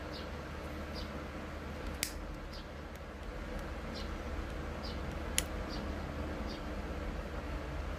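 Small parts handled by hand, a coax cable end with a ring terminal and heat-shrink tubing: two sharp clicks about two and five seconds in. Under them run a steady low hum and a faint high chirp that repeats about every three-quarters of a second.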